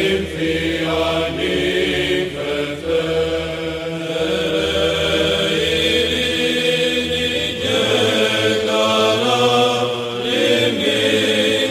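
Greek Orthodox Byzantine chant: a voice sings a slow melodic line over a steady low held drone note (the ison).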